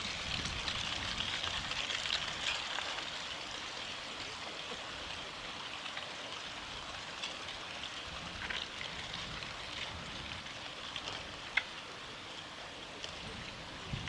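Steady rushing of a mountain stream, with one sharp click about eleven and a half seconds in.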